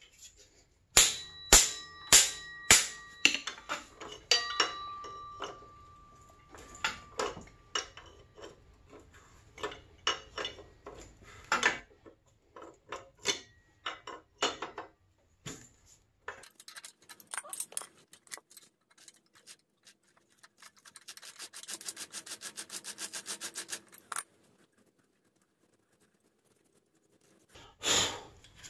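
Hand tools on the steel swingarm parts of a 1984 Honda ATC 200X: a few sharp strikes with a metallic ring, then scattered clanks and clicks. After the middle comes a run of rapid, even ratchet-wrench clicking for several seconds, and a brief rustle near the end.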